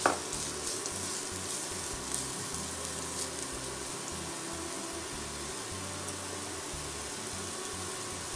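Diced onion sizzling steadily in a little vegetable oil in a non-stick frying pan over medium heat, with a few faint ticks.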